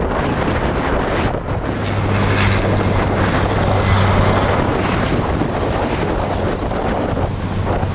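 Wind buffeting the microphone over the low, steady drone of diesel locomotives, an ALCo RSD16 and an EMD GR12W, pulling a train away; the engine drone swells about two seconds in and holds.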